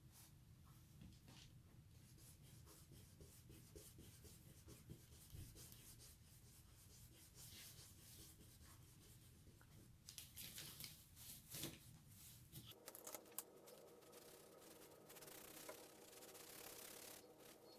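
Faint scratching of coloured pencils shading on paper in runs of quick strokes, busiest a little past the middle and again near the end.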